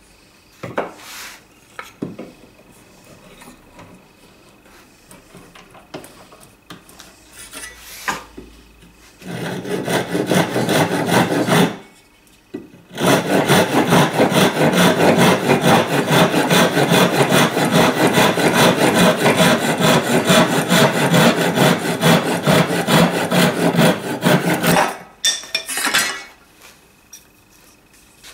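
Newly made Japanese kataba rip saw cutting a board held in a vise, with rapid, even back-and-forth strokes. A short burst of sawing comes about nine seconds in, then a brief stop, then about twelve seconds of continuous sawing. A few light knocks of the wood being handled come before and after.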